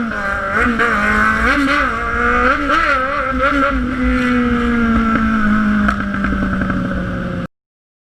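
Inline-four sport motorcycle engine being revved in a string of quick throttle blips, then held at steady high revs with the pitch sagging slightly, before the sound cuts off abruptly near the end.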